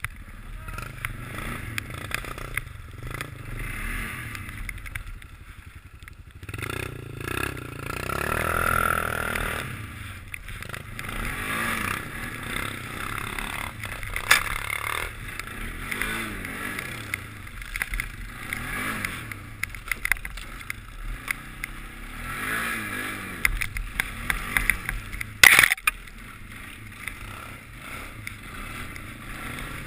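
ATV engine running with the revs rising and falling as it rides over a snowy trail, with two sharp knocks, one about halfway through and one near the end.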